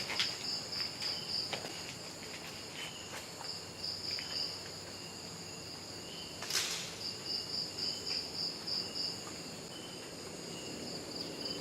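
Night insect chorus of crickets: a steady high-pitched trill pulsing in rapid trains, over a fainter intermittent chirp. A single brief rustling noise cuts through about six and a half seconds in.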